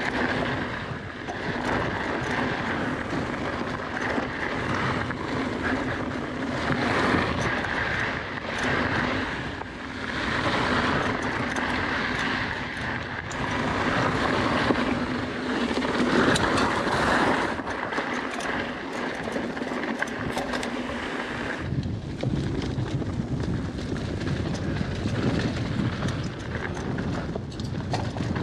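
Riding noise from a mountain bike on loose dirt singletrack, picked up by a GoPro Hero9 Black: wind rushing over the camera's microphone, tyres crunching over gravel and scattered rattles and ticks from the bike over bumps. The noise changes character abruptly about three quarters of the way through.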